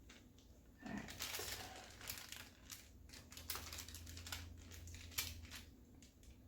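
Crinkling and light clicking handling noises, starting about a second in and thinning out near the end.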